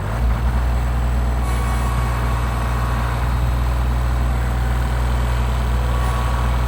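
Kubota tractor's diesel engine throttled up and running loud and steady under load, trying to back out of deep snow with its front end stuck. The engine note comes up suddenly at the start and holds even.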